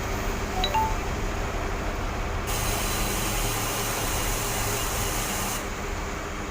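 Heavy diesel machinery of a concrete pump truck running steadily. A higher hiss comes in sharply for about three seconds in the middle.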